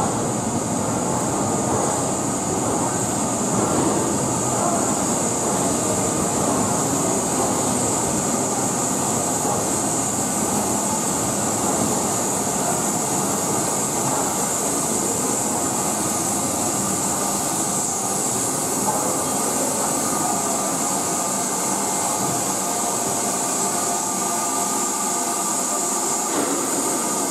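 LNER K4 2-6-0 steam locomotive 'The Great Marquess' running slowly into a platform with its coaches, a steady hiss of steam escaping around its cylinders over the rumble of the train. A faint squeal joins in as it slows toward the end.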